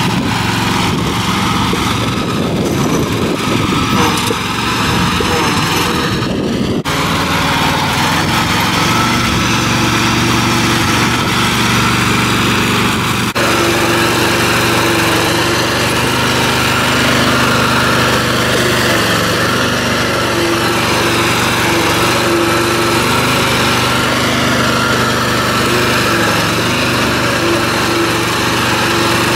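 Riding lawn mower's small gasoline engine running steadily as it drives over rough ground. The sound shifts abruptly about seven and thirteen seconds in.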